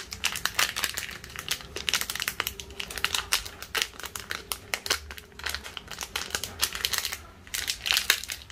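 Small clear plastic packet crinkling in quick, irregular crackles as it is handled and opened by hand.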